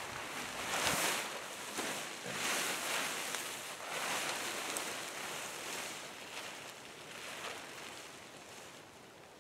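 Tipi fabric rustling and swishing as it is shaken out and spread over the ground. There are several strong swishes in the first four seconds, and then it quietens.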